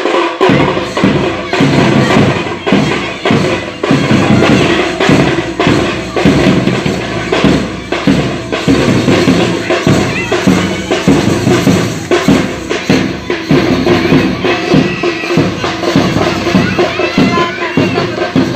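Dhol drums beating a steady, driving rhythm that starts suddenly and carries on without a break.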